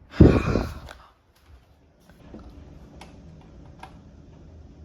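A loud, sudden burst of noise about a quarter second in, lasting around half a second, followed by a few sparse clicks of computer keyboard keys.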